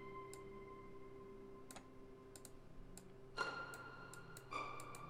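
Soft sustained string-ensemble notes from a sampled virtual string patch (Native Instruments Symphony Essentials String Ensemble) played back faintly. New notes swell in about three and a half and again four and a half seconds in. A few scattered sharp clicks sound over them.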